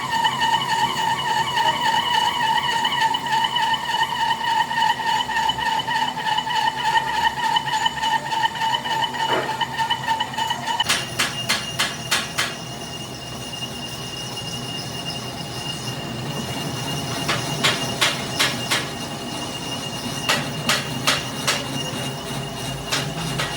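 A metalworking machine running with a steady high whine. About eleven seconds in, the whine mostly drops away and a run of sharp metallic clicks and knocks follows.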